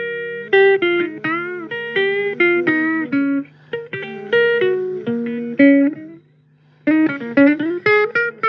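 Guitar playing single-note blues licks with bent notes, in short phrases with brief pauses between them, over a steady low hum.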